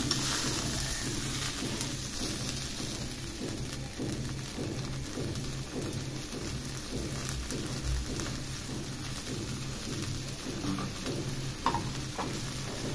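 Watery potato-and-tomato curry heating in an iron kadai, a steady sizzling, bubbling hiss as the freshly added water comes up toward the boil. A low hum runs underneath.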